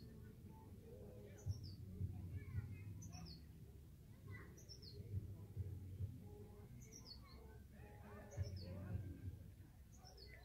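A songbird calling over and over: a short, high call of two or three quick falling notes, repeated about every one to two seconds.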